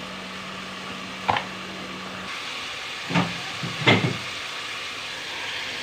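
Curry hissing in an aluminium pot, with three sharp metal knocks as a spoon and then a plate strike the pot while fried bitter gourd is tipped in; the last knock is the loudest. A low hum underneath stops a little after two seconds.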